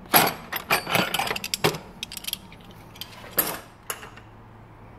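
Metal spanners clinking and rattling in a steel tool chest drawer as they are handled. There is a quick run of clinks in the first two seconds, then two more knocks a little after three seconds in.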